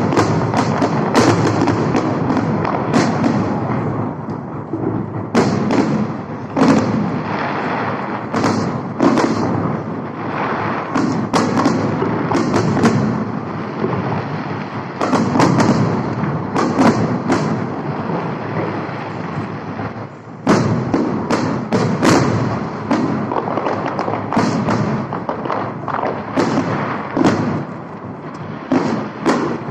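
Fireworks display: aerial shells bursting in a continuous run of booms, about one or two a second, over steady crackling.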